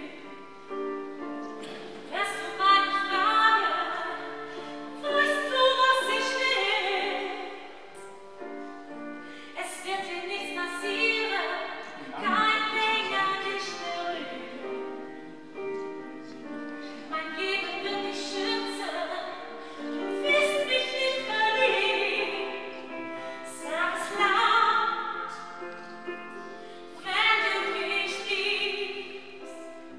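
Classical, operatic-style singing over sustained instrumental accompaniment, the sung phrases swelling and falling away every few seconds.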